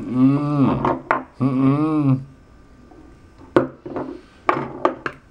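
A man making two long closed-mouth hums, muffled protests with no words, followed by a few short grunts. Several sharp taps and clicks come in the second half, as something prods at his mouth and teeth.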